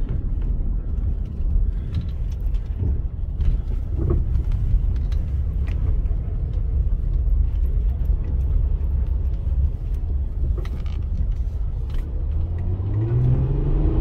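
Honda Accord V6 heard from inside the cabin while driving: a steady low engine and road rumble, with the engine pitch rising as it accelerates near the end. The engine runs smoothly now that a valve adjustment has cured its misfire on one bank.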